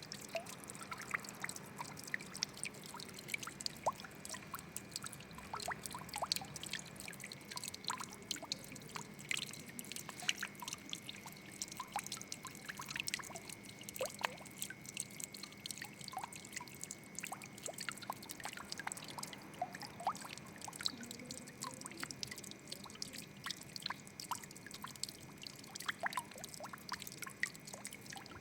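Water trickling and dripping: a soft steady splashing with many small irregular drips and plinks.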